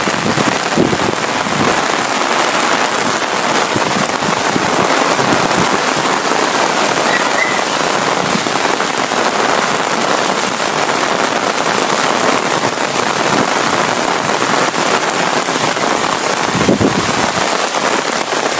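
Heavy rain pouring onto a paved street and sidewalk: a loud, steady, dense hiss.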